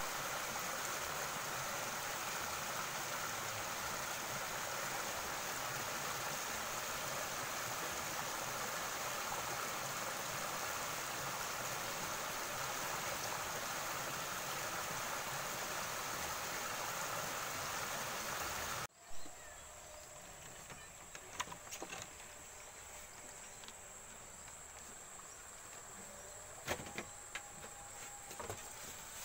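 Shallow river water rushing steadily over a low rocky weir. About two-thirds of the way through it gives way to a quieter riverbank, with a steady high insect buzz and a few faint clicks.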